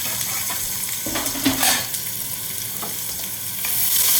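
Chopped onions sizzling in hot oil in a pot, with a few scrapes of a spoon stirring them about a second in. The sizzle grows louder near the end.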